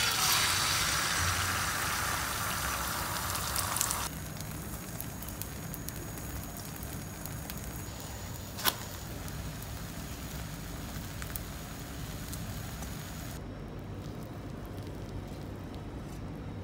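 Food sizzling in a hot oiled frying pan as a mixture is poured in: a loud hiss for about four seconds, then a quieter steady frying sizzle after a cut, with one sharp knock about halfway. The sizzle fades further near the end.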